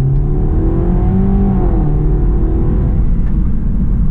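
BMW 320i's B48 turbocharged four-cylinder engine pulling under acceleration, its pitch rising for about the first second and a half, then dipping and holding steadier, over a low road rumble.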